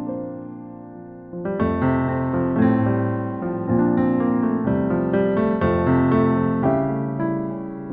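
Background music: piano playing sustained chords, softer at first and swelling about a second and a half in.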